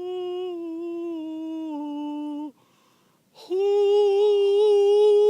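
A person's voice humming two long held notes. The first drifts slowly lower and breaks off about two and a half seconds in; the second, louder and steady, starts about a second later.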